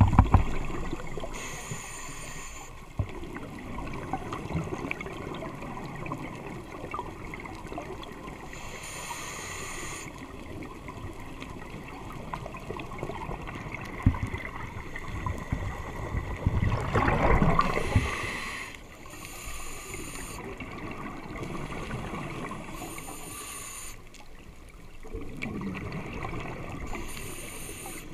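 Underwater sound through a GoPro's waterproof housing: a scuba diver breathing on a regulator, with bursts of exhaled bubbles gurgling past every few seconds. The loudest burst comes a little past halfway.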